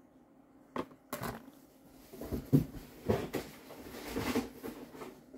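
Rummaging through a box of packaged goods: two sharp knocks about a second in, then irregular rustling and knocking of packaging being handled.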